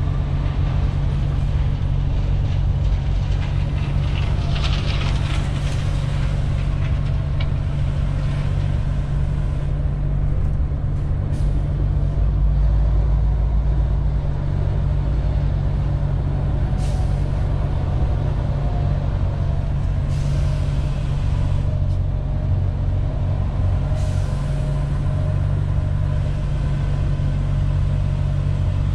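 Steady low drone of a MAN TGX 18.470 truck's straight-six diesel engine and road noise inside the cab while driving at a steady pace. A few short hisses sound over it, the longest about five seconds in.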